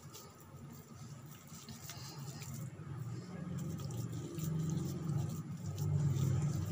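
Hands scooping and pressing a moist ground beef and chana dal mixture into a shami kabab patty: soft squishing and patting that grows louder toward the end.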